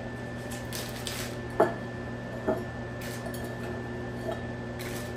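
A few short clinks of kitchenware being handled, the sharpest about one and a half seconds in and another about a second later, over a steady low hum.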